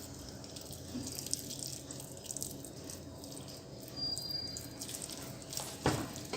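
Faint wet squelching and small clicks of hands rubbing thick masala paste into a whole fish, with a single knock just before the end.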